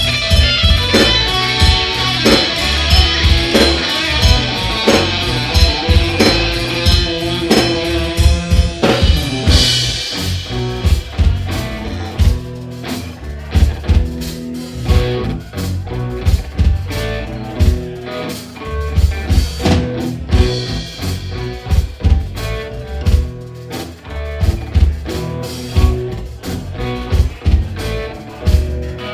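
Live rock band playing: electric guitar with bending notes over bass guitar and a drum kit. About a third of the way in a cymbal crashes and the drums and bass carry a steady beat.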